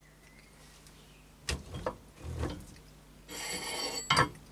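Metal plate with threaded studs being handled against a drill table and scissor jack: a few metal knocks and a dull thud, then about a second of ringing, scraping metal as the plate slides, and a sharp clank near the end.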